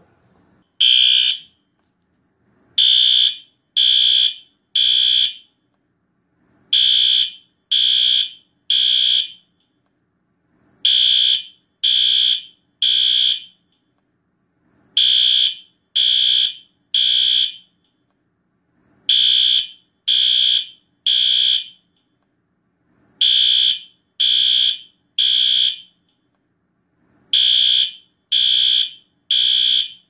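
System Sensor SpectrAlert Advance P2R horn strobe sounding its horn at full volume, really loud and high-pitched. After a single blast about a second in, it gives groups of three short blasts that repeat every four seconds: the temporal-3 fire evacuation pattern.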